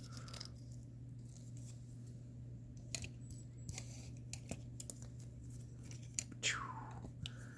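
Faint, scattered clicks and light handling noises of small plastic fingerboards and grip tape being handled, over a steady low hum, with one brief falling squeak about six and a half seconds in.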